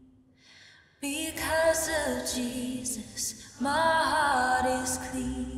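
A woman singing a slow worship song, holding long notes that glide up and down. The first second is almost quiet between phrases, she comes in about a second in, and there is a short break about halfway.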